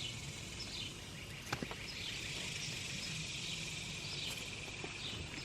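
Steady outdoor insect chorus with occasional faint bird chirps, and a couple of light clicks about a second and a half in.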